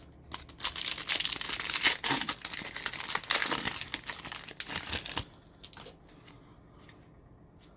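A trading-card pack wrapper crinkling and tearing as it is ripped open, for about five seconds, then only a few faint clicks from the cards being handled.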